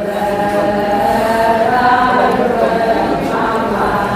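A chorus of many voices chanting together in unison: a traditional Adi Solung festival song.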